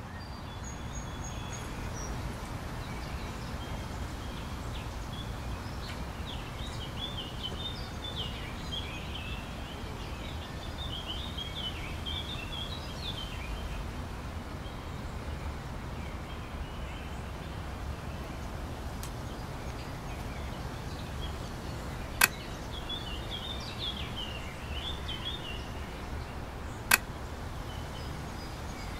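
Outdoor ambience: small birds chirping in scattered bursts over a steady low rumble. Two sharp, loud clicks stand out near the end, about five seconds apart.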